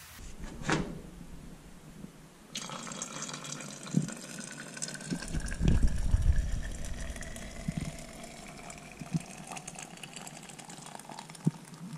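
Water pouring from a large container into a plastic water jug, filling it. The pouring starts about two and a half seconds in, and its pitch rises steadily as the jug fills.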